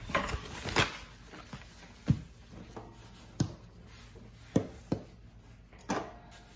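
Hard-boiled eggs knocked against a worktop and bowl to crack their shells for peeling: about six sharp taps, roughly one a second, the loudest about two seconds in.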